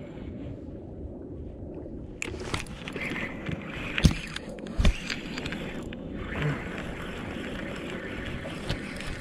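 Spinning reel being cranked to wind in line, with a few sharp knocks from handling, the loudest about four and five seconds in, over steady low wind and water noise.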